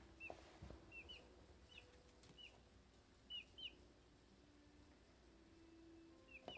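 Baby Dominique chicks peeping faintly: short, high peeps that drop at the end, coming singly or in quick pairs, with a quiet stretch of a couple of seconds past the middle.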